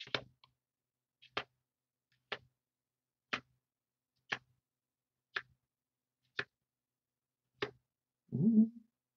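Trading cards being flicked through one at a time, each card giving a crisp snap about once a second. Near the end there is a brief, louder low murmur from a voice.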